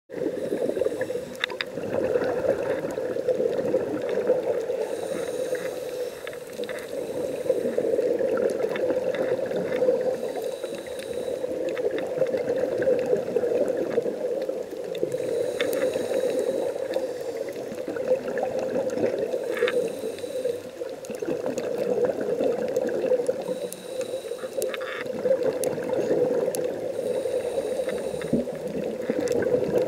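Underwater sound through a dive camera's housing: a steady drone with a scuba diver's regulator breathing, a hissing inhale about every four to five seconds, and bubbling between breaths.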